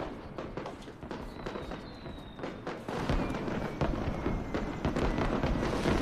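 Fireworks and firecrackers crackling and popping, with thin falling whistles from fireworks; the crackle grows louder about three seconds in.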